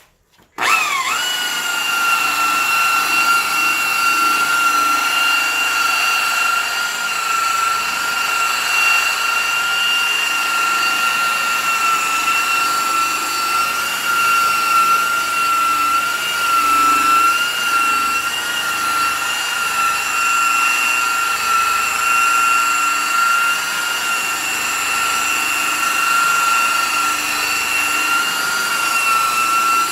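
Electric buffer with a wool pad switched on about half a second in. It spins up quickly and then runs at a steady high whine while working polishing compound into a headlight lens.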